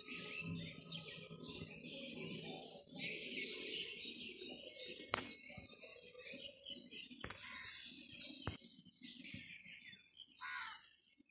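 Many small birds chirping and twittering together, with a low rumble underneath and a few sharp clicks in the second half, the loudest about halfway through.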